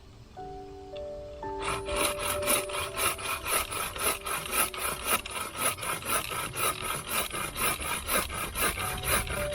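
Rapid back-and-forth rasping strokes of a hand tool scraping or cutting, about three strokes a second, starting a couple of seconds in, over background music.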